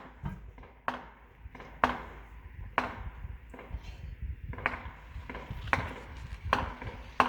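Fireworks shells bursting: a string of sharp bangs, roughly one a second, over a steady low rumble.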